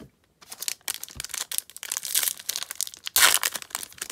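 Foil wrapper of a Topps baseball card pack crinkling and tearing as it is ripped open by hand, the loudest rip about three seconds in.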